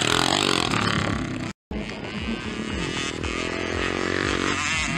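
Mini motocross bike engine revving hard as it passes, the revs climbing through the middle. The sound cuts out completely for a split second about a third of the way in.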